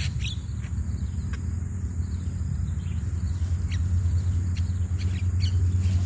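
Scattered short, sharp chirps from jalak (myna) birds, about six over the stretch, over a loud steady low hum and a thin, steady high-pitched insect whine.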